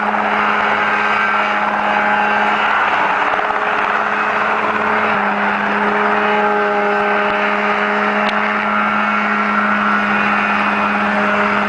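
Ultralight helicopter running: a steady engine drone with a constant hum under it, which shifts slightly about five seconds in.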